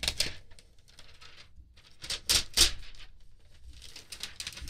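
Cardboard product box being opened and its packaging handled: a run of small clicks, scrapes and rustles, with two louder knocks a little over two seconds in.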